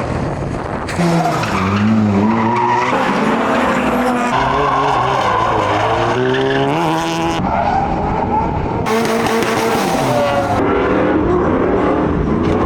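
Drift-car engines revving up and down with tyres squealing, in quick cuts every second or two.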